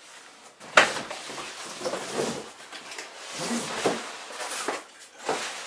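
Unboxing noise: packaging and parts being handled and pulled out of a cardboard box, irregular rustling and scraping with a sharp knock about a second in.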